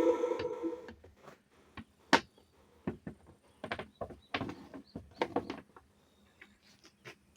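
Kawamoto N3-206SH well pump motor's hum dying away within the first second, followed by a scattering of sharp clicks and knocks.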